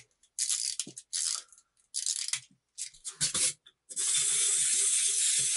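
A cheap wind-up robot toy: its key is wound in several short turns, then about four seconds in the clockwork motor is released and runs with a steady whirr.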